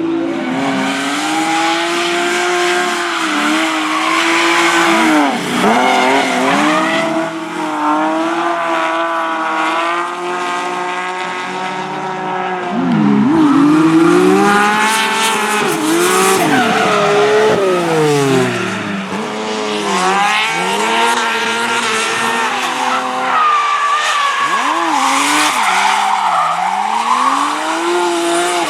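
Drift car engine revving hard, its pitch repeatedly climbing and dropping as the throttle is worked, with tyres squealing through the slides.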